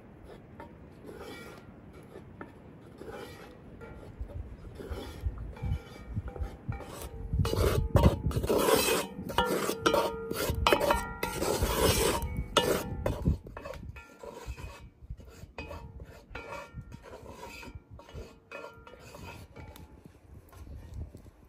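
A wooden spatula scrapes and stirs dry wheat flour around a metal pot as the flour is toasted for halva. The strokes rasp repeatedly, growing louder about a third of the way in and easing off after the middle.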